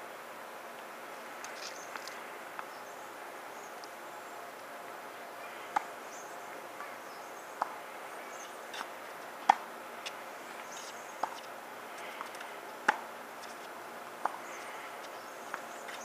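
Tennis rally on a hard court: sharp pops of the ball off racket strings and its bounces on the court, about one every second or so, starting about six seconds in, a few of them much louder than the rest.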